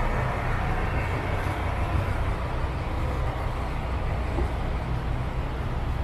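Street traffic: vehicles running with a steady low rumble.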